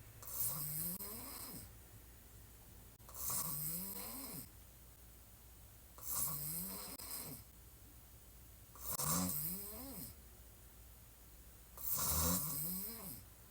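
A woman snoring on her back with her mouth open: five loud snores about three seconds apart, each rising in pitch, with quiet breathing between them.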